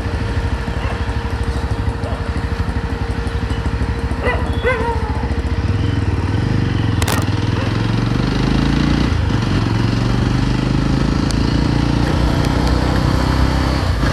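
Yezdi Roadster motorcycle's single-cylinder engine running under way, growing louder and rising in pitch from about halfway as the bike accelerates. There is a single sharp click a little past halfway.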